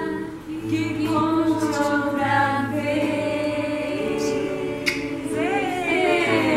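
Several women's voices singing together with acoustic guitar accompaniment, the closing of a children's song. Near the end the voices slide up and then down in pitch.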